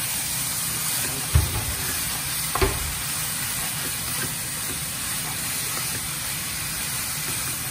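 Chicken pieces, potato and onion sizzling in a hot non-stick pan as a wooden spatula stirs and turns them, with two knocks about a second and a half and nearly three seconds in. The meat is being seared to seal it.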